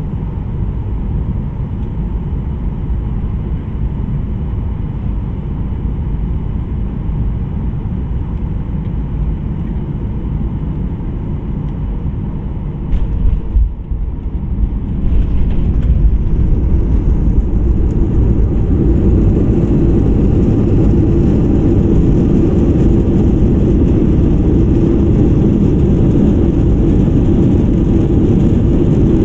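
Inside the cabin of a Boeing 737-900ER landing, a steady rush of CFM56-7B engine and airflow noise. About 13 seconds in come a few short thumps as the wheels touch down. From about 15 seconds the engine noise rises and stays louder as reverse thrust is applied on the wet runway.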